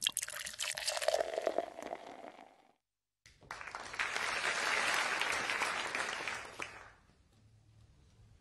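Audience applause, a dense patter of clapping that fades out about seven seconds in. It is preceded by a couple of seconds of scratchy clicking and a short silence.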